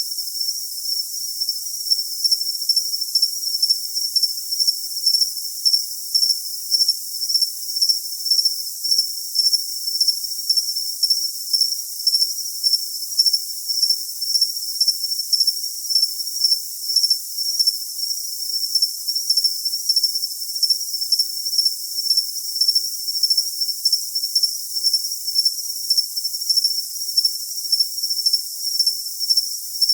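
Cricket chirping: an unbroken high-pitched trill that pulses about twice a second, with no lower sound beneath it.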